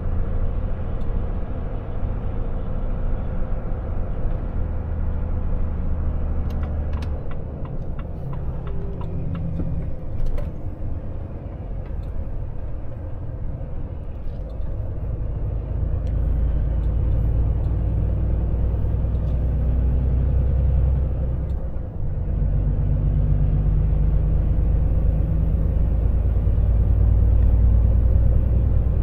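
Volvo FH truck's diesel engine and road noise heard inside the cab while driving: a steady low drone with a few light clicks and rattles. About three-quarters of the way through the drone cuts out for a moment and comes back louder.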